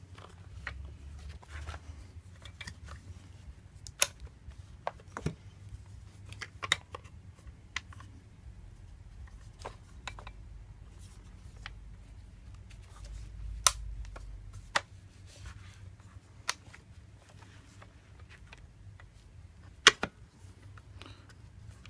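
Scattered clicks and light knocks of a Kel-Tec RFB rifle's polymer and metal parts being handled and pressed together as the trigger assembly is pushed down into the stock, with a faint low rumble of hands moving on the gun.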